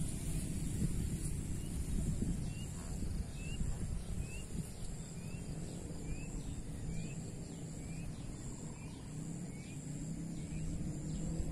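Riverside ambience: a steady low rumble, with a bird repeating a short rising chirp about once a second through most of the stretch, over a faint high insect buzz.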